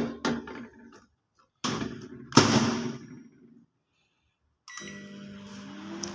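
Two sharp clattering knocks, then after a short silence a Sharp microwave oven starts running with a steady electrical hum, one tone in it rising in pitch as it comes up to speed. It is heating water on a test run after its failed high-voltage capacitor was replaced.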